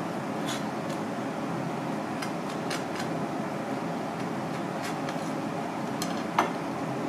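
Steady background hum with a few light clicks of a sushi knife on a cutting board as clam meat is sliced, and one sharper knock a little after six seconds in.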